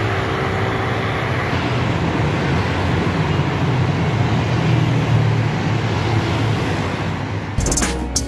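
Road traffic noise under a highway overpass: a steady roar of passing vehicles, with a motorcycle going by close a few seconds in. Background music cuts back in near the end.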